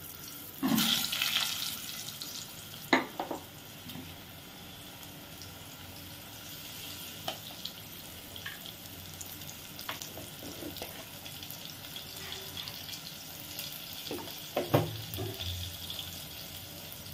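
Potato pieces frying in hot mustard oil in a pot: a steady sizzle, louder for a moment about a second in as more pieces go in, with a few light knocks of utensils, the sharpest near the end.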